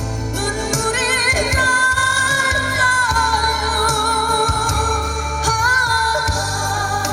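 A woman singing a slow Korean ballad, holding long notes with a wide vibrato over a backing track with a steady bass line.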